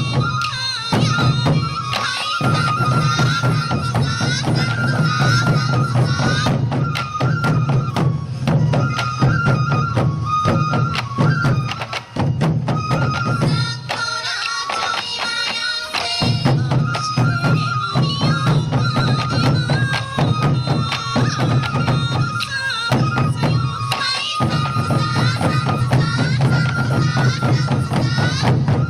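Sansa odori festival music: taiko drums beating steadily under the melody of yokobue, Japanese transverse bamboo flutes. The drums drop out briefly a few times, longest around the middle, while the flutes play on.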